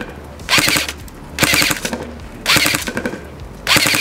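Tokyo Marui MP5SD6 airsoft electric gun (AEG) firing four short bursts, each about half a second of rapid shots with the gearbox cycling.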